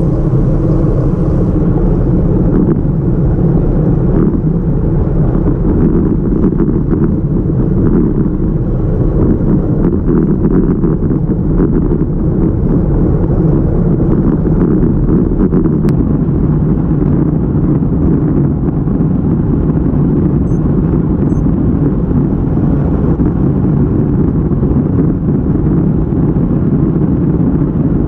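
Steady low wind rumble on the microphone of a handlebar-mounted camera while riding a road bike, mixed with road and tyre noise.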